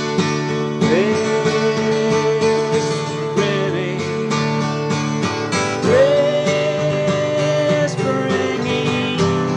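Acoustic guitar music in a country-folk style: picked and strummed chords under a melody of long held notes that slide up into pitch, about a second in, around six seconds in, and again near the end.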